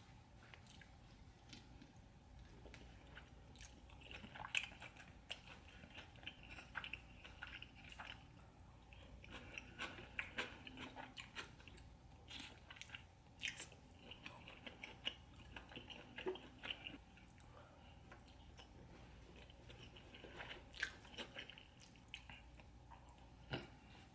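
Close-miked chewing and biting of saucy seafood: scattered wet mouth clicks and smacks that come in runs with short pauses.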